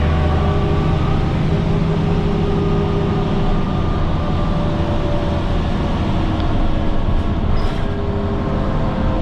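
Transit bus running on the road, heard from inside the passenger cabin: a steady low engine drone with faint whining tones over it.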